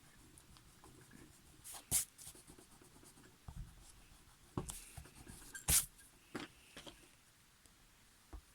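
A few short scratchy strokes on paper, spaced a second or more apart, the strongest about two seconds in and just before the six-second mark.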